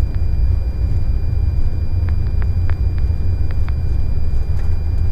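Airbus A330-300 accelerating on its takeoff roll at takeoff thrust, heard from the cockpit: a loud, steady deep rumble of engines and wheels on the runway, with a few light knocks at irregular intervals.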